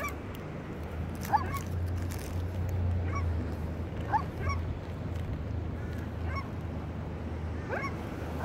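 Birds giving short honking calls, repeated every second or so and sometimes in quick pairs, over a steady low rumble.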